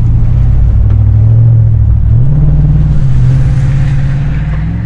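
Pickup truck engine running while driving, a steady low hum whose pitch steps up about two seconds in as it speeds up.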